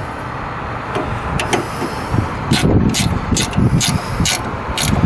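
A wrench works the stop arm's nylon lock nuts down snug, making a series of irregular sharp metallic clicks, most of them in the second half, over a steady low rumble.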